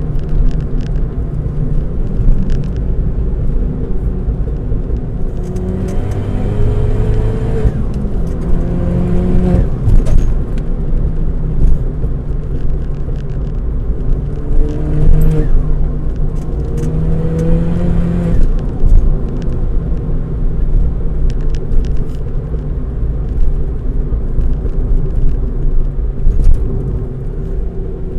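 Ford Fiesta ST200's turbocharged 1.6-litre four-cylinder engine accelerating through the gears: its note rises in several pulls and drops back at each gear change, over a steady rumble of road noise.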